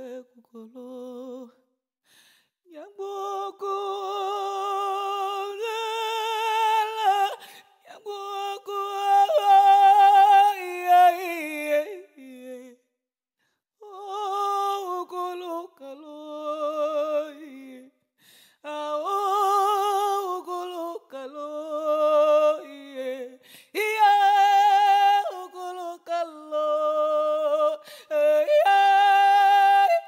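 A woman's solo voice singing unaccompanied, holding long notes with a wide vibrato and ornamented runs, in phrases broken by short pauses.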